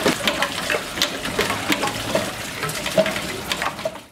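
Hand-cranked rope pump running: water splashes from its outlet pipe into a steel bowl, mixed with irregular clicks and rattles from the bicycle-wheel flywheel, rope and pistons. The sound fades out near the end.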